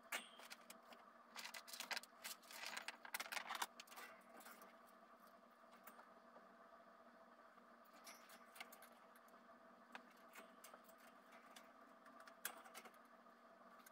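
Rustling and light clattering of items being handled and set down inside a wire pet cage, busiest in the first four seconds, then a few faint clicks over a low steady hum.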